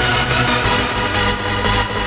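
Electronic dance music with a steady low beat and sustained synth tones.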